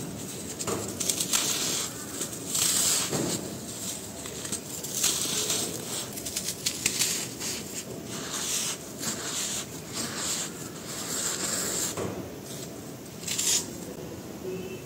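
Dry, dusty sand-cement chunks crumbled and rubbed by hand, making gritty crunching and crumbs trickling in irregular bursts. It includes a palm rubbing and swirling over the powdery face of a round cement block.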